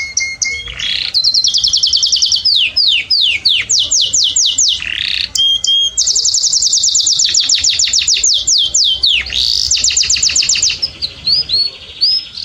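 Domestic canary singing: a rapid run of high, fast repeated notes, with long even trills, quick downward-sweeping notes and short whistled phrases changing every second or two.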